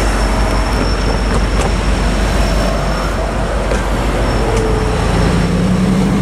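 Road traffic: cars and a pickup truck driving close past one after another, a steady rush of tyre and engine noise.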